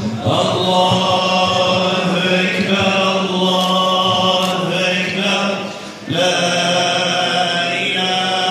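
Large crowd chanting in unison, long held voiced phrases at a loud steady level, with a short break about six seconds in before the chant resumes.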